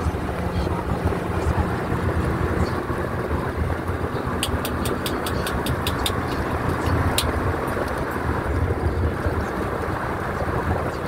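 Steady road and engine rumble of a moving road vehicle crossing a bridge, with wind. About four seconds in, a quick run of about ten light ticks, roughly three or four a second, lasts close to three seconds.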